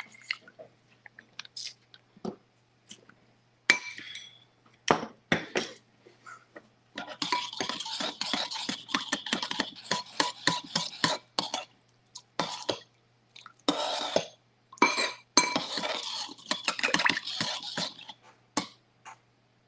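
A metal spoon whisking salad dressing in a ceramic bowl, clinking rapidly against the sides for about ten seconds with short pauses. A few separate clinks and knocks come first, while lemon juice is squeezed in with a hand-held citrus press.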